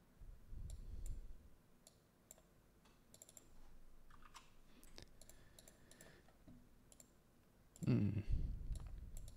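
Scattered computer mouse clicks and a few key taps, irregular and light, as nodes are created and moved in software. A louder low rumble or mumble comes in near the end.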